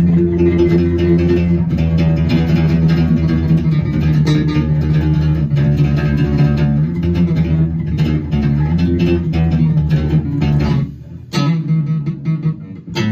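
Biarnel Scorcio 32 headless electric bass, a two-band active 32-inch-scale model, played through a bass amp: a steady line of plucked, sustained low notes with quicker runs, broken by a brief pause about eleven seconds in.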